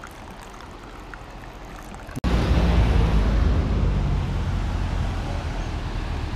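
Faint background hush, then after an abrupt cut about two seconds in, a loud steady rushing of wind buffeting the microphone over the sound of the river.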